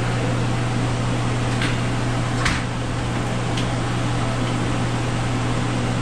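Steady machine hum with rushing air, like a large shop fan running, with three light clicks in the first half.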